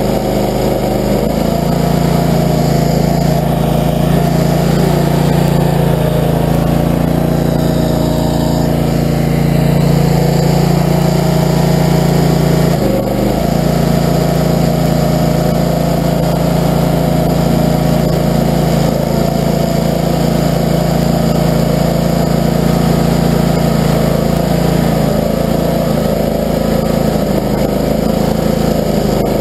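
Barreto tracked stump grinder's gasoline engine running steadily at a constant speed, with one brief dip in its note about halfway through.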